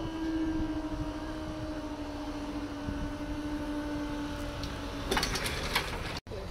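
Level crossing barrier mechanism whining steadily as the booms lift to upright, stopping about five seconds in with a brief rattle.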